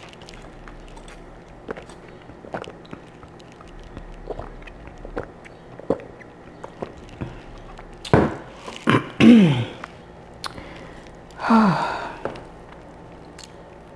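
Faint sips and small clicks from drinking through a straw, then a woman's short wordless vocal sounds, each falling in pitch, from about eight seconds in, with a breathier one near the end.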